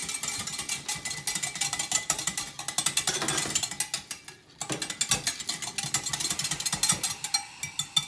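Wire whisk beating eggs in a glass measuring jug: a fast, continuous run of clinks and ticks as the wires strike the glass, with a brief pause about halfway through.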